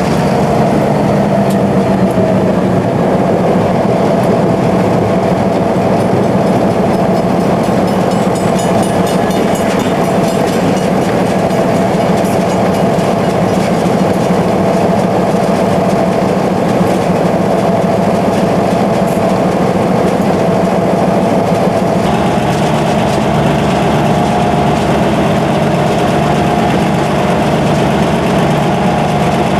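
EMD SW1500 switcher locomotive's 12-cylinder diesel engine running steadily, heard close up, with a steady whine over the engine sound. The sound shifts in character about 22 seconds in.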